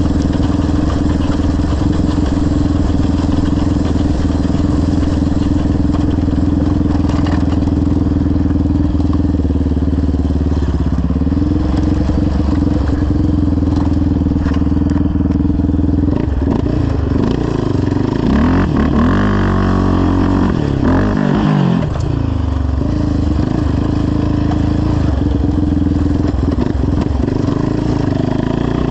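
Yamaha Raptor 700R quad's single-cylinder engine, fitted with a full CT Racing exhaust, running while the quad is ridden. It holds a steady note for most of the time, then for several seconds past the middle the revs rise and fall repeatedly before settling again.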